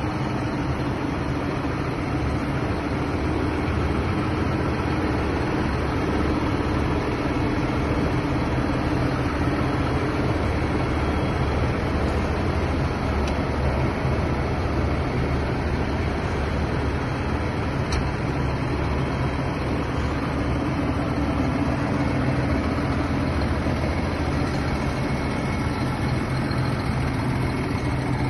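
CLAAS tractor's diesel engine running steadily.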